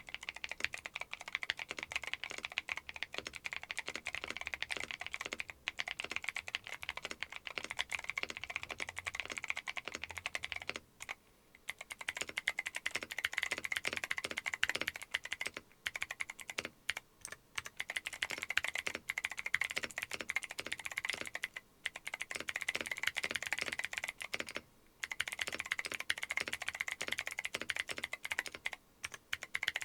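Fast typing on a mechanical keyboard with Akko Creamy Cyan clicky switches in a Neo 70 board: a dense run of sharp clicks from the switches' click jackets, broken by a few brief pauses.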